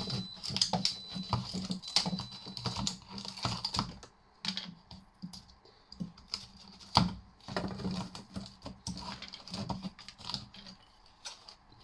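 Irregular clicking, cracking and knocking of hard plastic and small metal parts as a plastic cover is pried and peeled off an electrical fitting by hand. The sharpest knock comes about halfway through.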